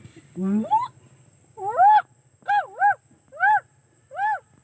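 Fox pup calling: a whine that rises steeply in pitch, then five short high yelps that each rise and fall, the last four close together.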